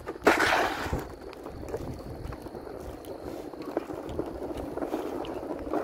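Outdoor rumble and rustle on a handheld phone microphone: a sharp gust-like burst just after the start, then a steady noisy hiss with a few faint clicks.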